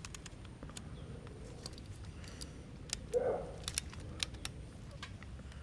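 Light, scattered clicks of a Nikon lens's aperture ring being turned and the camera being handled. A brief cluster of sharper clicks comes near the middle, and a short low sound is heard just after three seconds.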